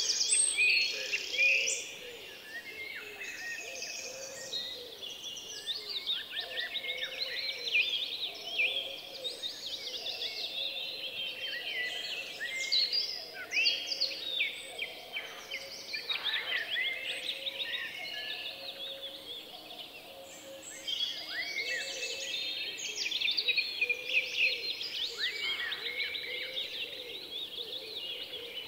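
A dense chorus of many birds calling: high, quick chirps overlapping without a break, louder for the first two seconds and again a little past the middle.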